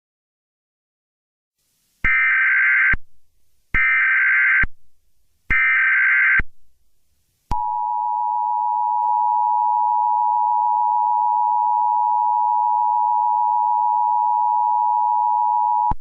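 Emergency Alert System tones: three short bursts of SAME header data, each about a second long with a short pause between. About seven and a half seconds in, the steady two-tone attention signal starts and holds for about eight seconds, cutting off just before the alert message.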